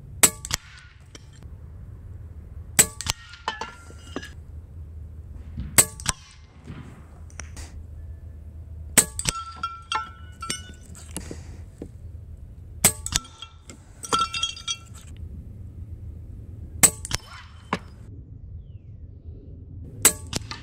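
A .22 Daystate Pulsar electronic PCP air rifle fired seven times, one shot every three to four seconds. Pellets clang and clink off metal silhouette targets, knocking them down.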